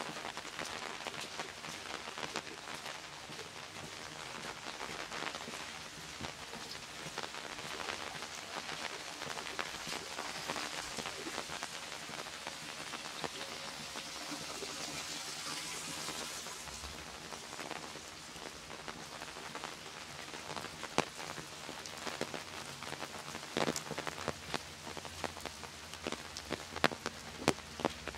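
Steady rain falling on wet pavement and foliage, a soft even hiss that swells a little around the middle. Sharp drops tap close by, more often in the last several seconds.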